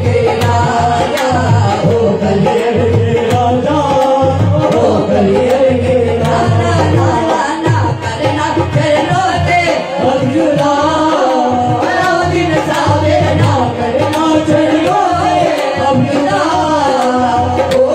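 Live qawwali: a male lead singer's voice with backing singers, harmonium and dholak drum keeping a steady beat.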